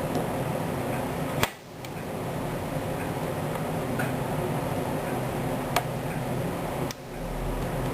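A few sharp, isolated clicks, as of small metal trigger parts being handled, over a steady background hiss.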